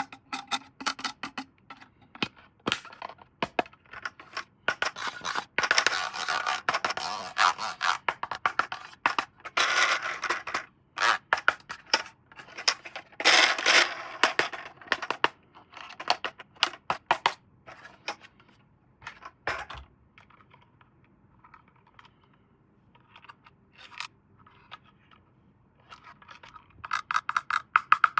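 Toy packaging being handled and opened: a string of small clicks and scrapes, with three longer bouts of scraping or tearing, about five, ten and thirteen seconds in. It goes quieter in the latter part before the clicking picks up again near the end.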